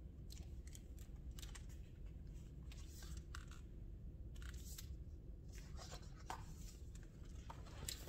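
Faint handling of a hardcover picture book: the cover opening and pages being turned, giving a scattering of soft paper rustles and light clicks over a low steady room hum.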